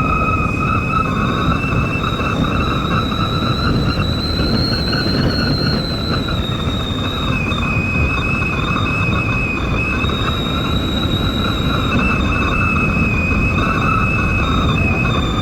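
Strong wind rushing and buffeting the microphone, with a steady high-pitched whistle that wavers slightly in pitch running over it.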